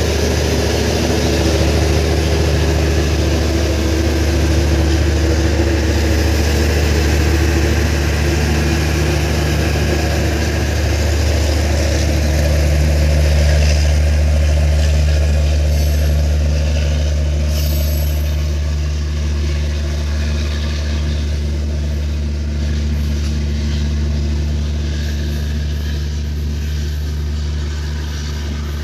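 Passenger train of LHB coaches rolling past on electrified track: a steady rumble and clatter of wheels on the rails. It is loudest about halfway through and eases a little near the end as the rear of the train approaches.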